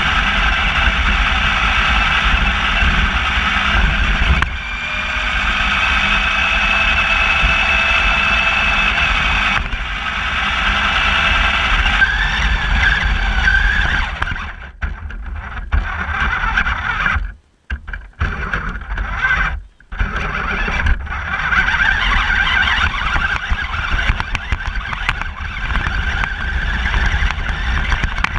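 Electric RC car's motor whining with gear noise and a steady rumble of the tyres over the ground, heard from a camera mounted on the car. The whine shifts a little in pitch as the car drives, and the sound drops out briefly twice past the middle.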